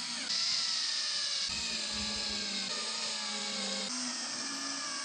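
Cordless drill-driver driving screw-in dowels into wooden furniture rails: a steady motor whine that sags slightly in pitch under load, with small steps in level a few times.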